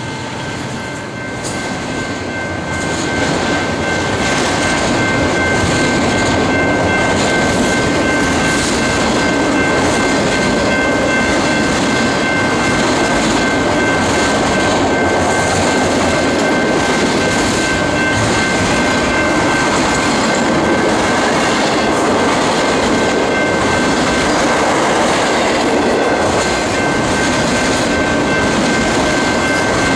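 Loaded autorack freight cars rolling past at speed: a steady rumble and clatter of steel wheels on the rails, with a steady high ringing tone running through it. The noise builds over the first few seconds, then holds steady.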